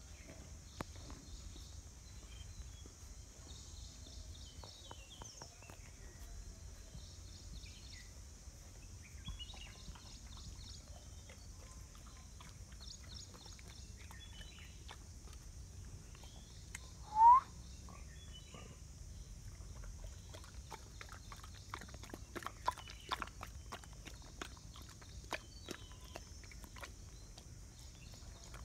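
A dog lapping and eating a runny ragi malt meal from a stainless-steel bowl: quick wet clicks and slurps, thickest in the second half. One short, loud rising squeak just past halfway.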